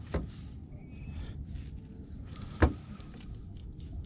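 Knocks and bumps in a small aluminium fishing boat over a low, steady rumble, the loudest a single sharp thump about two and a half seconds in.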